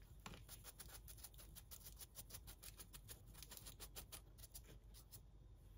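Faint, quick, light scraping strokes on a bolete mushroom as it is trimmed, about six a second, stopping about five seconds in.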